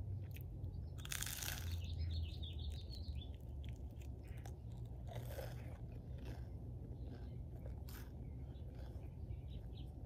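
Close-up crunching and chewing of a slice of toast: a loud crunchy bite about a second in, then further crunches around five and eight seconds, with lighter chewing between.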